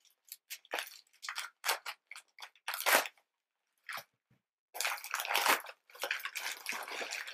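A subscription mailer package being opened by hand: scattered crackles and crinkles of packaging, then about five seconds in a denser run of continuous rustling.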